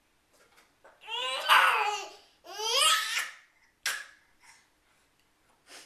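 A 13-month-old baby laughing in two long high-pitched bursts, the first about a second in and the second about half a second after it, each falling in pitch. A brief sharp sound follows just before the fourth second.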